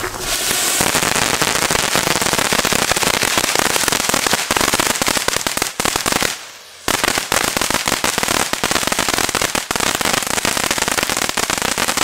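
Broeckhoff Titanium Thunder Fountain ground fountains crackling: a loud, dense, rapid crackle of many small pops from the burning fountains. It drops out for about half a second near the middle, then resumes.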